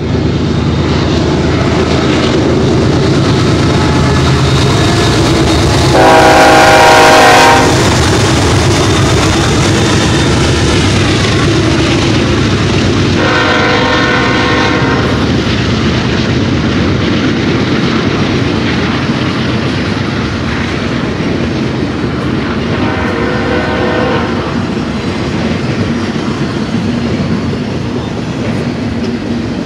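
BNSF double-stack intermodal freight train passing close by, a steady rumble of GE diesel locomotives (an ES44C4 leading two Dash-9s) and rolling well cars with a clickety-clack of wheels. A locomotive air horn sounds a multi-note chord three times: a long blast about six seconds in, the loudest sound, another around thirteen seconds, and a shorter one near twenty-three seconds.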